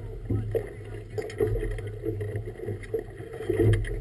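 Water slapping and splashing against a boat's hull in choppy water, over a steady low rumble.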